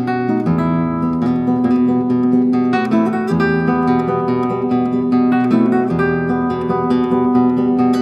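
Solo acoustic guitar music: a quick run of plucked notes over bass notes that change every two to three seconds.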